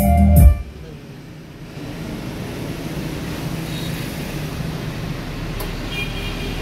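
Music with heavy bass, played through a stage PA system, stops abruptly about half a second in. After that there is only a steady background hiss and rumble.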